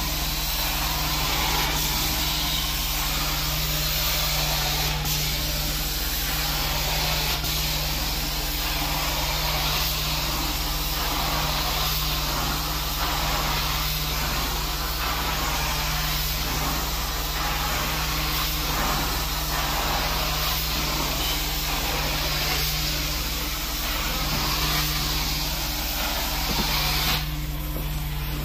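Carpet steam-cleaning (hot water extraction) machine running with a steady low hum, under the constant hiss of the cleaning wand spraying and sucking up water from the carpet. The hiss thins briefly near the end.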